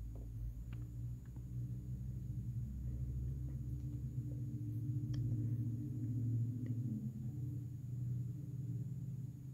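A low hum with a few faint ticks, swelling slightly in the middle.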